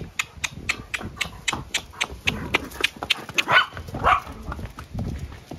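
Horse's hooves clip-clopping at a walk on concrete, about four hoof strikes a second. A small dog gives two short barks about three and a half seconds in.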